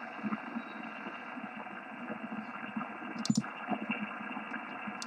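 Yaesu FT-1000MP HF transceiver's speaker giving steady band noise and static from the 11-metre band, cut off in the treble like a sideband receiver's audio. A sharp click about three seconds in and another at the end come from the front-panel buttons being pressed.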